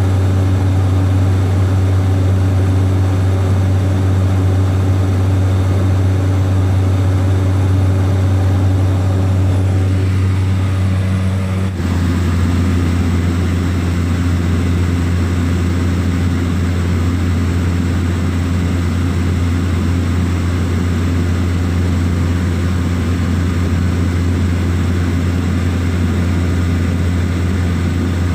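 Small propeller plane in flight, its engine and propeller making a loud, steady drone with a deep hum. About twelve seconds in the tone shifts abruptly, then the drone carries on.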